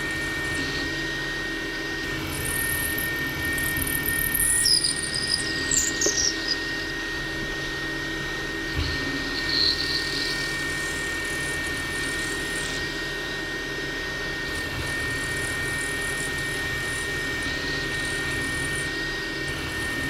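Small PM30 benchtop milling machine running while its cutter plunges a counterbore, with a steady high whine throughout. Brief high squeals from the cut come about four to six seconds in, and the cutter is loading up a little.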